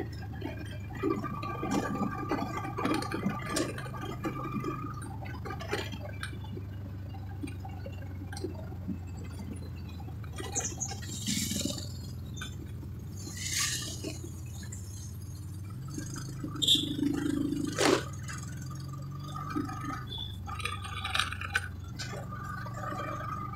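A vehicle driving, heard from inside its cabin: a steady low engine drone with scattered knocks and rattles, and one sharper knock late on.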